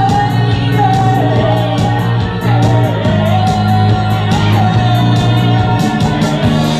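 Rock band playing live: a steady drum beat with regular cymbal strikes, held bass notes and a wavering lead melody over them.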